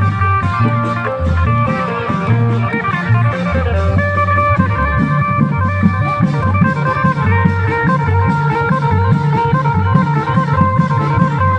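Thai klong yao long-drum band playing continuously: low, repeated beats of the long drums under a plucked-string lead carrying a busy melody.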